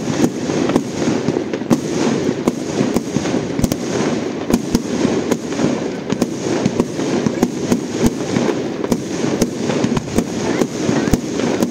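Fireworks display going off: sharp bangs and pops in quick, irregular succession, two or three a second, over a continuous rumbling noise.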